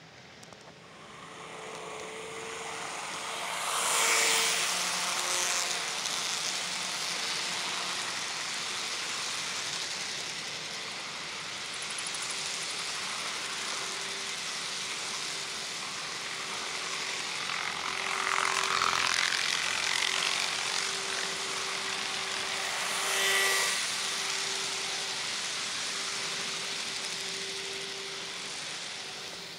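N scale model freight train running past close by: a steady rattling clatter of small metal wheels over the track, swelling louder a few times, with a steady motor whine underneath.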